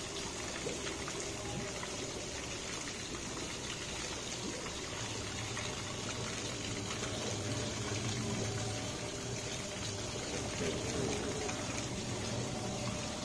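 Steady splashing of water from a tiered stone fountain falling into its pool.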